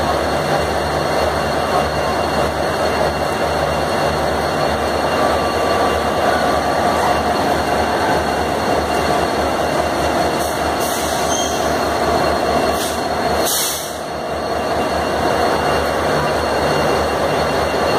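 Indian Railways locomotive running steadily, with a low rhythmic throb. Short bursts of hiss come about ten and thirteen seconds in.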